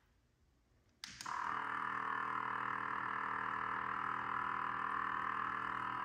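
A live bait aerator air pump is switched on with a click about a second in, then runs with a steady, loud hum that reads about 71 dBA on a sound level meter.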